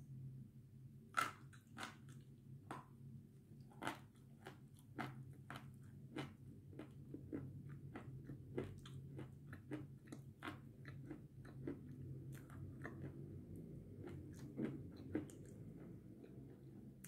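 Biting and chewing chunks of edible chalk. A few sharp crunching bites in the first four seconds are followed by a quick run of smaller crunches as it is chewed, over a low steady hum.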